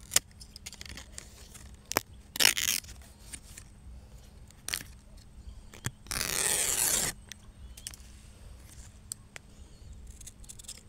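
A coconut leaf being cut with scissors and torn by hand: a few sharp snips, a short tearing sound about two and a half seconds in, and a longer, louder tear lasting about a second just after the middle.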